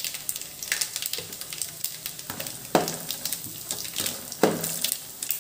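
Dried red chillies, garlic and cumin sizzling in hot ghee and oil in an aluminium pan: a tempering (tadka). A spatula scrapes and stirs through the pan about four times.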